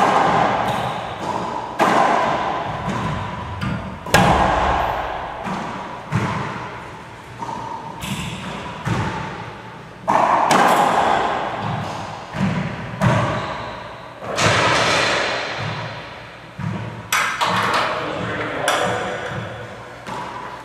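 A racquetball rally: the ball smacks off racquets and the court walls and floor at irregular intervals of one to two seconds, and each hit rings out in the court's echo.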